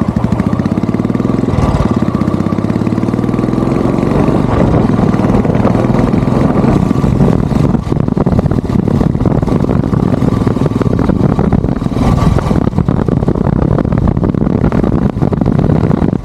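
Royal Enfield Bullet 350's single-cylinder engine pulling away, its pitch rising as it accelerates over the first few seconds with a short break near 2 seconds, as at a gear change, then running steadily under way.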